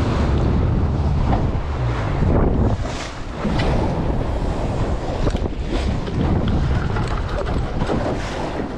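Wind buffeting the microphone on a boat under way, a continuous low rumbling noise over the sound of the boat and water.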